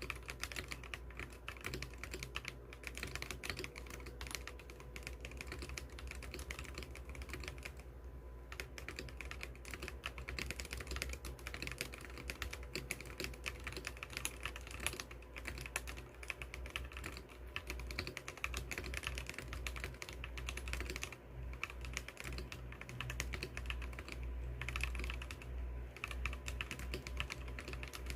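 Continuous fast typing on an Akko 5075B Plus mechanical keyboard with dye-sublimated keycaps, a dense run of keystroke clacks with short pauses about 8, 21 and 25 seconds in.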